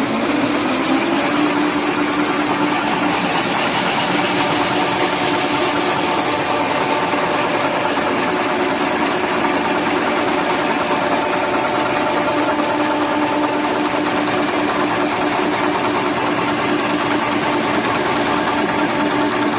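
Napkin tissue converting machine running at working speed, unwinding, folding and stacking tissue: a steady, dense mechanical running noise with a constant hum.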